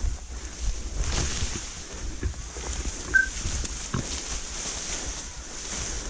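Wind rumbling on the microphone over a faint steady hiss, with a few light knocks and one short high chirp about three seconds in.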